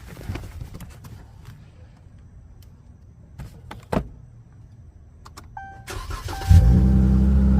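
Dodge Charger engine started, catching about six and a half seconds in and then idling loudly and steadily through its muffler-delete exhaust with the resonators kept. Before it come a few light clicks and a short beep.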